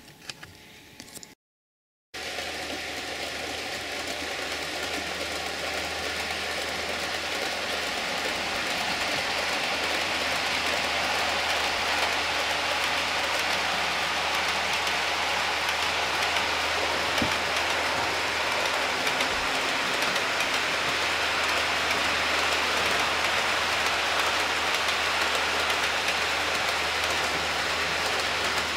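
Model container train running round the layout: a steady rattling hiss of wheels on the rails over a low hum, growing gradually louder for several seconds and then holding steady. It starts after a moment of dead silence near the start.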